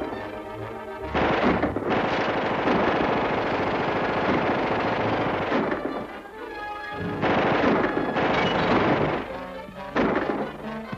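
Orchestral action score from a 1940s film serial, with two long stretches of rapid gunfire and a sharp crash near the end.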